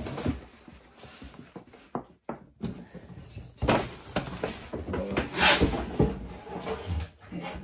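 A cardboard gift box and the packaging inside it being opened and handled by hand: irregular rustling with scattered knocks and taps, the loudest rustle about five and a half seconds in.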